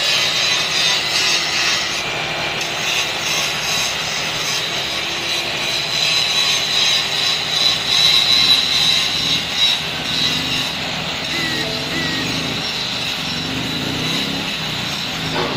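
Large electric angle grinder grinding steel clamped in a vise: a steady high whine over harsh, continuous grinding noise.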